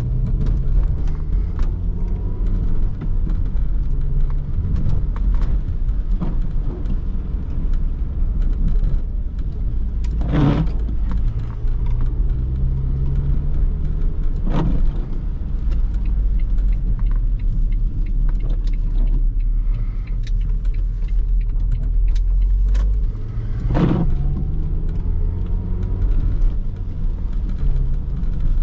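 Renault Laguna II's 1.8-litre 16-valve four-cylinder petrol engine and road rumble, heard from inside the cabin while the car is driven. The engine note rises twice as it pulls, and there are three dull thumps.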